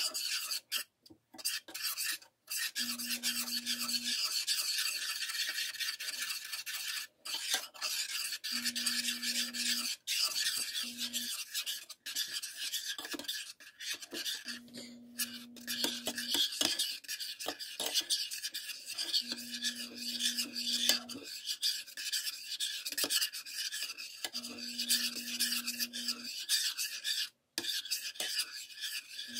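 Metal spoon scraping steadily around the bottom and sides of a stainless steel saucepan as thick mung bean batter is stirred without stop over the heat, to keep it from lumping and burning. A low hum comes and goes every few seconds underneath.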